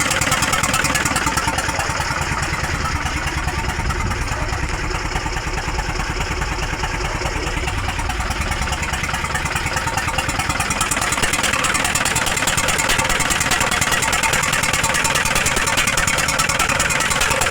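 Hino 300 truck's W04D four-cylinder diesel engine idling steadily with a misfire. The mechanic blames a blown gasket.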